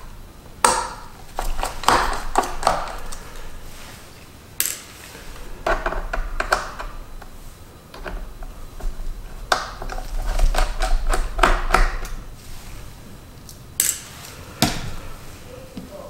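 Scattered light metallic clicks and taps of a small precision screwdriver and screws on a 2015 MacBook Pro's aluminium bottom case as its screws are taken out.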